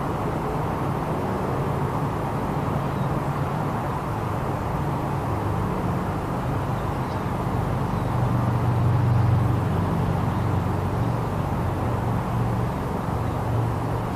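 A motor running steadily, a low hum whose pitch wavers a little and swells about eight seconds in, over a steady rushing noise.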